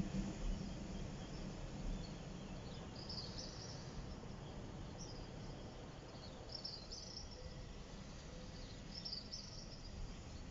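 Small birds chirping at dawn, short high chirps coming every second or two, over a faint low background rumble.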